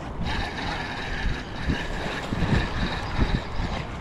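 Spinning fishing reel being cranked, its gears whirring as line is retrieved. Irregular low thumps and rumble run underneath.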